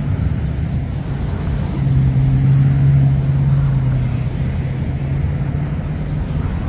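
A low engine drone with a strong steady hum, loudest about two to three seconds in, then easing off slightly as its pitch sinks a little.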